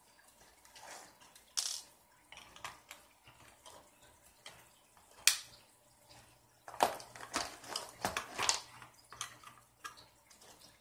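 Small plastic and metal parts of an RC buggy's rear end clicking, tapping and rattling as they are handled and fitted by hand, in irregular sharp clicks that come thicker in the second half.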